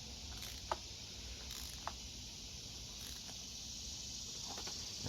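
A spark plug being hand-threaded into its well with a socket and extension: a couple of faint metal ticks, one under a second in and another near two seconds, over a steady high hiss.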